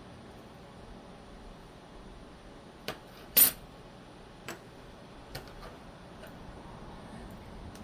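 Small metal parts of a folding knife clicking and clinking against each other as it is being reassembled: four or so sharp clicks, the loudest about three and a half seconds in.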